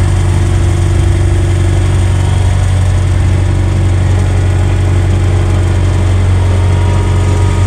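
An engine running steadily at idle, a constant low hum that does not rise or fall.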